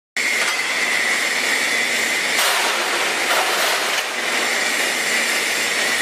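Hydraulic scrap metal baler's power unit running with a steady whine, with a few sharp metal clanks a little before the middle.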